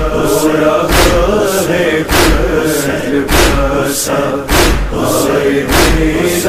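A group of voices chanting a noha, an Urdu Muharram lament, in unison, over a heavy beat that falls about once a second.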